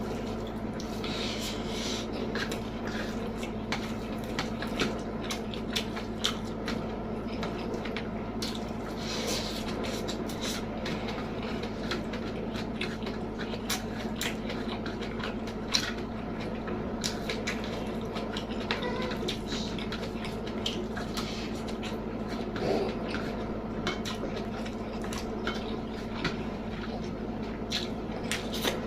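Close-miked eating sounds: wet chewing and mouth smacks with frequent short irregular clicks and taps, as of utensils or fingers against a plate. A steady low hum runs underneath.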